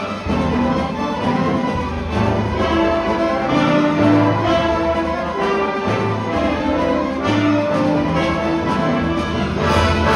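Student orchestra playing live, led by a conductor, with bowed violins and cellos sustaining notes over a steady low pulse.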